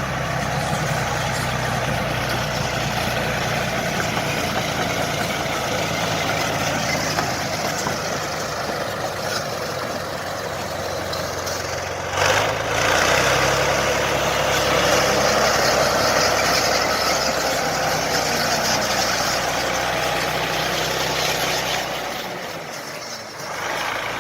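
Heavy diesel bulldozer engine running steadily under a broad machine noise. About twelve seconds in there is a sharp knock, after which the noise grows louder before easing near the end.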